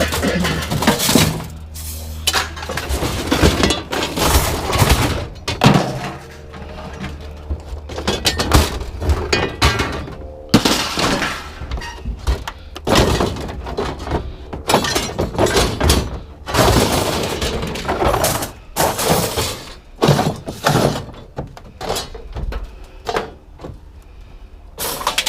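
Scrap metal being handled and tossed, with repeated, irregular clanks and crashes.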